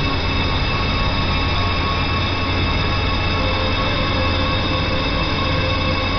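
Horror suspense ambience: a steady low rumbling drone under a dense wash of held, screeching metallic tones. A further held tone joins about three and a half seconds in.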